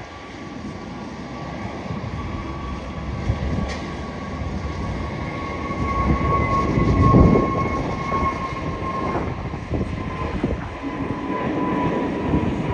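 Jet airliner's engines going by: a low rumble with a steady whine that slowly falls a little in pitch, swelling to its loudest about halfway through.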